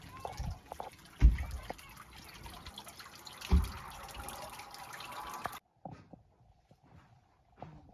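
Water trickling and dripping, with two dull low thumps, one a little over a second in and one about three and a half seconds in. The water sound stops abruptly a little past halfway.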